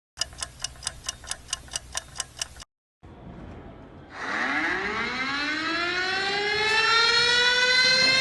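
A rapid run of about a dozen sharp ticks, about five a second, then a short gap and a faint hiss. A little over four seconds in, an air-raid style siren starts winding up, its pitch rising steeply and then levelling off into a steady tone, used here as a test alarm.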